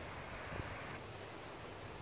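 Outdoor beach ambience: wind rumbling on the microphone, with a soft wash of small waves on the sand.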